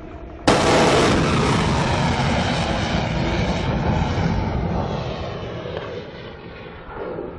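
Nour cruise missile launching from a warship: a sudden loud blast about half a second in, then the missile's roar fading steadily over several seconds as it climbs away.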